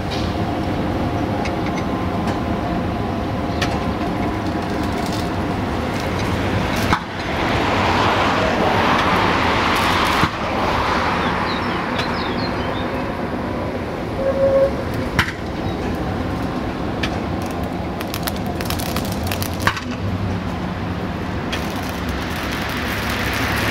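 A heavy vehicle running steadily with a low hum, a swell of rushing noise a quarter of the way in, a few sharp knocks and a short beep near the middle.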